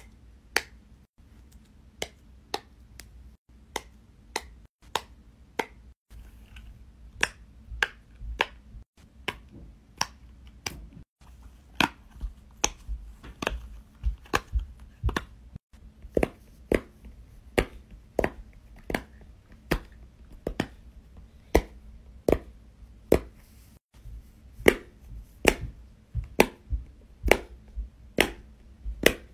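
Simple Dimple fidget toys' silicone bubbles being pressed one after another, each giving a sharp pop, about one to three a second at an uneven pace.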